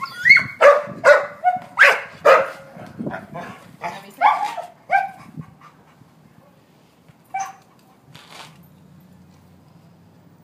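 Dog barking: a rapid run of about ten loud barks in the first five seconds, then two single barks a couple of seconds later.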